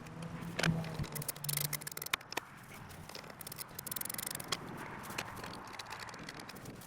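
Irregular metallic clicks and short scrapes of hand tools as new bolts are fitted and tightened on a Bobcat MT100 mini track loader's muffler flange.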